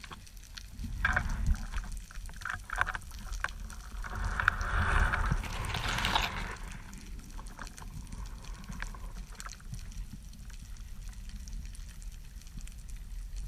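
Underwater sound picked up by a camera in its housing while diving: a steady low rumble of moving water with scattered short clicks and knocks, and a louder hissing swell about four to six seconds in.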